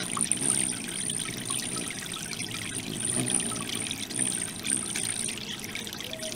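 Water trickling and splashing steadily from the tiers of a three-tier garden fountain into its basin, with a thin high-pitched note that comes and goes above it.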